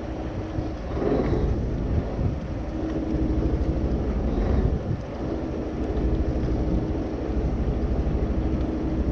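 Wind buffeting the microphone on a small fishing boat at sea, a dense low rumble, with a faint steady hum that drops out and returns.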